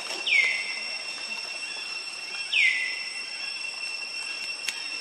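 A high call, heard twice, each time dropping sharply in pitch and then holding a steady note for about half a second, over a constant high-pitched whine from forest wildlife.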